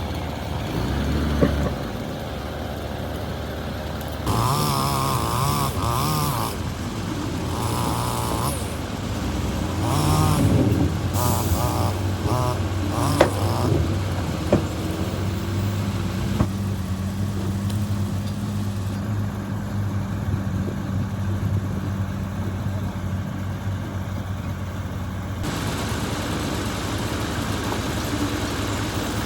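Diesel engines of heavy earthmoving machinery running steadily, getting louder for stretches. A few sharp knocks come through in the middle.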